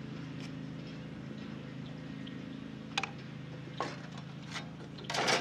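Hand tools being handled on timber beams: a few light clicks and knocks, then a louder scrape near the end, over a steady low hum.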